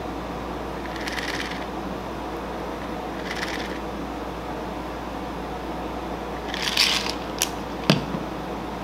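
Cocktail shaker pouring the last trickles of a drink into a martini glass, faintly, twice in the first few seconds, over a steady hum. Near the end the shaker rattles briefly and is set down on the bar counter with a sharp knock.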